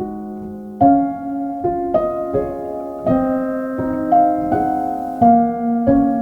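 Background music: a gentle piano melody of sustained notes, struck about every half second to a second.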